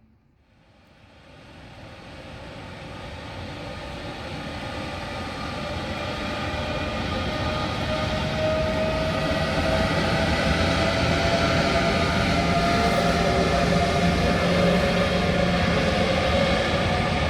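A train approaching, growing from faint to loud over the first eight seconds and then running loud and steady. Its drive gives a whine that rises slowly in pitch.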